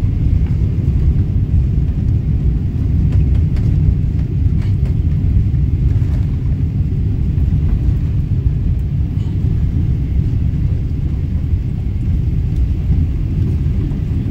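Steady low rumble in the cabin of a Boeing 777-300ER rolling out along the runway after touchdown.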